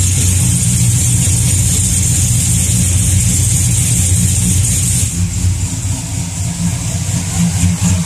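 Cammed GM V8 with long-tube headers running in gear, heard from under the truck as a steady low exhaust rumble, a little quieter after about five seconds. There is no tick: the exhaust manifold gasket leak that caused it has been fixed.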